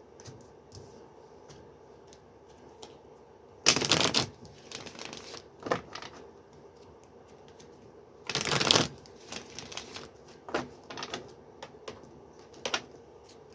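A deck of tarot cards being shuffled: two loud bursts of shuffling, about four seconds in and again about eight seconds in, with softer card clicks and slides between.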